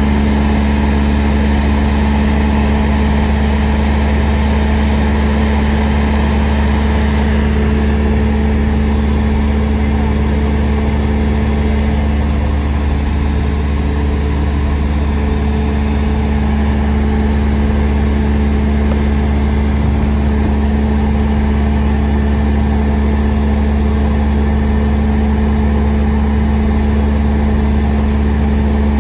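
Single-engine Cessna's piston engine and propeller droning steadily in level flight, heard from inside the cabin, with a low, even hum and airflow noise.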